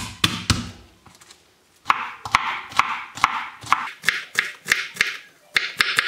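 Kitchen knife chopping garlic cloves on a wooden cutting board. A few strokes at the start, then after a short pause a steady run of about two to three chops a second.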